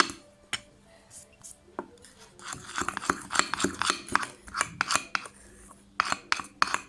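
Teaspoon stirring and scraping a thick toothpaste-and-salt slime mixture in a bowl, with quiet stirring at first and then a quick run of clinks and scrapes from about two and a half seconds in.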